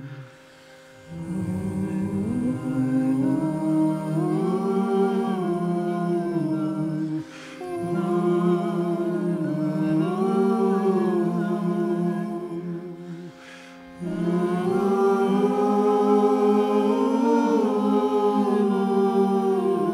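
Several voices singing a slow, somber wordless melody together, hummed or on open syllables, in three long phrases with brief breaks for breath. A steady low drone note holds underneath throughout.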